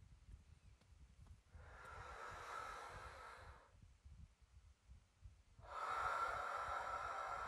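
A person breathing deeply: two long, airy breaths, the first about one and a half seconds in and the second starting near the end.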